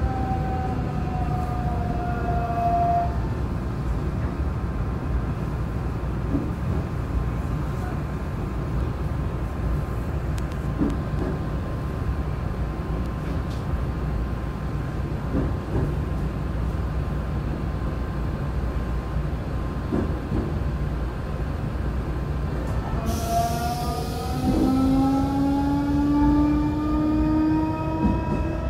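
Nankai 8300 series electric train with a Hitachi SiC VVVF inverter, heard from inside the car. The inverter and motor whine falls in pitch and dies away in the first few seconds, leaving a steady wheel-and-rail rumble with a few faint knocks. About 23 seconds in, the whine comes back, rising in pitch.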